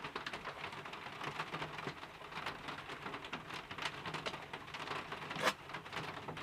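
Green slime being squished, giving a faint, dense crackle of tiny wet pops and clicks, with one louder pop about five and a half seconds in.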